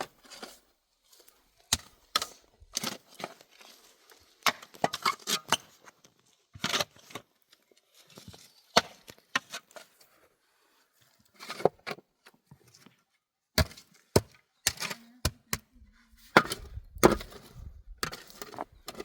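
Irregular sharp knocks and cracks of wood being chopped or broken by hand, coming in short clusters with pauses between them.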